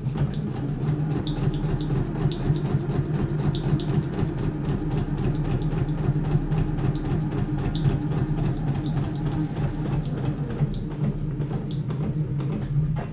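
Electric sewing machine running steadily under the foot pedal, its needle punching through a paper practice sheet: a constant motor hum with a rapid, even ticking of needle strokes.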